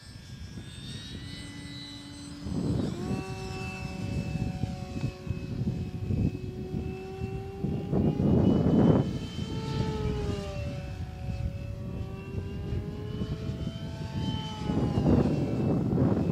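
Radio-controlled P-51D Mustang scale model flying overhead: its motor and propeller make a steady whine that slides up and down in pitch as it passes and turns, with louder rushing swells about three, eight and fifteen seconds in.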